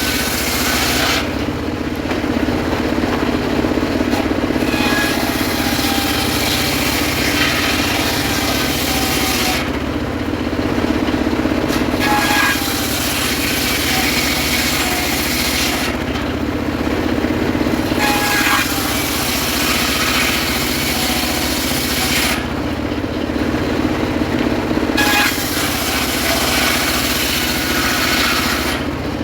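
Homemade circular saw running steadily while its blade rips through sengon wood in repeated passes: each cut is a hissing stretch of several seconds, with a short break before the next, about every six seconds.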